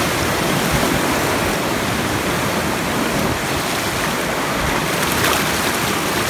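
Fast stream water rushing and splashing over rocks, a steady full roar.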